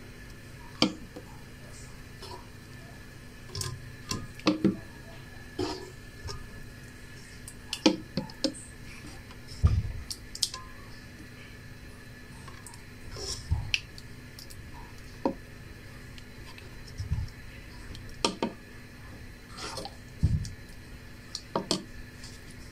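A spoon scooping thick strawberry jam from a metal pot into a glass jar: irregular clinks and knocks of the spoon against the pot and the jar, over a faint steady hum.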